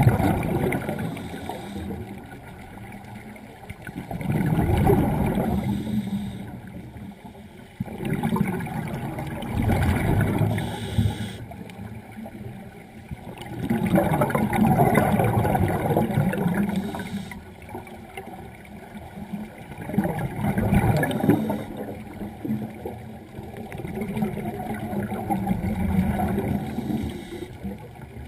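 Scuba diver breathing through a regulator underwater: loud bubbling bursts of exhaled air about every four seconds, each lasting one to three seconds, with quieter stretches between.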